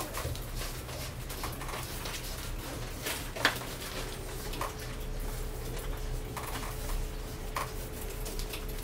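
A person moving on hands and knees over a tiled floor: soft shuffling with scattered light taps and knocks, and one sharper click about three and a half seconds in. A faint steady hum joins about four seconds in.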